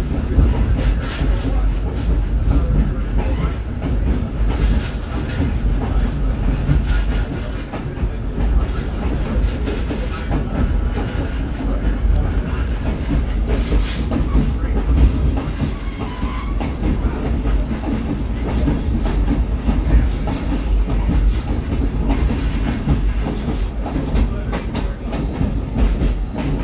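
Caboose rolling along the track, heard from its cupola: a steady rumble of wheels on rail and a rattling car body, with irregular clicks as the wheels cross rail joints.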